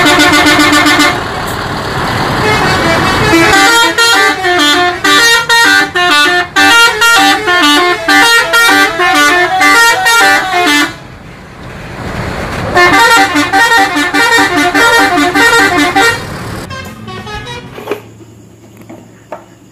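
Tour bus's multi-tone musical 'telolet' horn. It opens with a steady blast, then plays rapid, changing note sequences for several seconds. After a short gap of engine and street noise it plays a second run of notes, which fades near the end.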